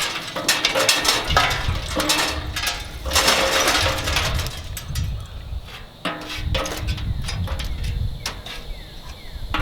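Lump charcoal clattering and rattling against the sheet-metal fire chamber and expanded-metal grate of a gravity-fed charcoal smoker, in irregular bursts with a brief metallic ring.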